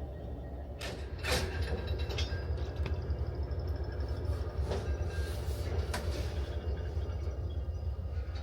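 Railway carriage with a steady low rumble, broken by half a dozen sharp metallic clanks and knocks.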